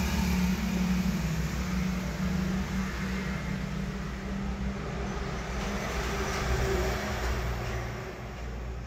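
Cat purring close to the microphone: a steady, low rumble that eases off near the end.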